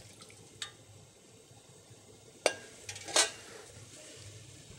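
Metal kitchenware clinking against a stainless steel bowl: a few short, sharp taps and knocks, the loudest a little after three seconds in, with a brief ring.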